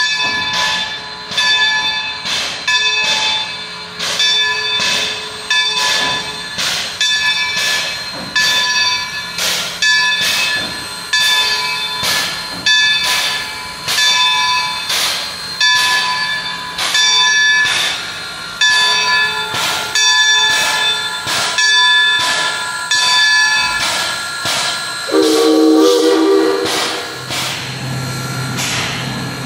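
Bell of Baldwin steam locomotive No. 26 ringing steadily, about one stroke a second. Near the end, a short blast of several notes at once from its Central Railroad of New Jersey three-chime steam whistle.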